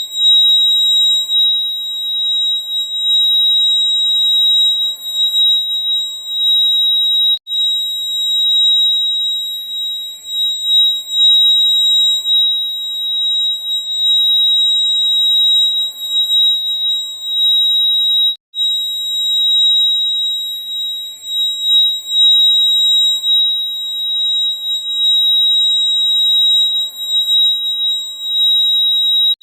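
Fire alarm sounding a continuous shrill, high-pitched tone, cutting out for an instant twice: about seven seconds in and about eighteen seconds in.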